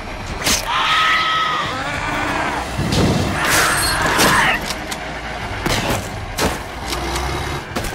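Action-film sound mix: a front loader's engine runs low beneath a shrill creature-like shriek about a second in, a harsh noisy burst around the middle, and several sharp crashes and impacts.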